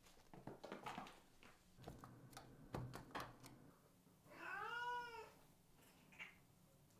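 A Norwegian Forest cat's paws and claws scuffing and clicking irregularly on a slippery wooden floor during its zoomies. About four seconds in comes a single drawn-out meow, about a second long, that rises and falls in pitch.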